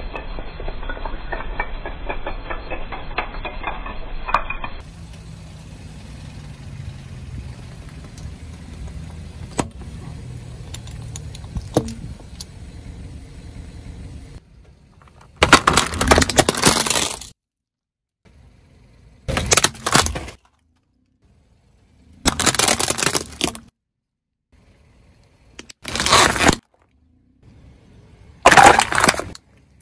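Objects cracking and crunching as they are crushed under a car, in five short loud bursts with near silence between them. Before them comes a stretch of steady low noise.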